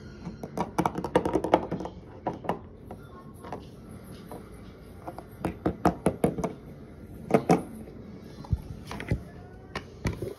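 Hard plastic toy animal figurines tapping and clacking against a wooden surface as they are moved and knocked together, an irregular run of light knocks.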